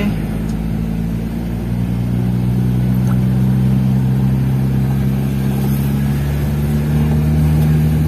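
Car engine running while driving, heard from inside the cabin as a steady low drone that grows a little louder about two seconds in.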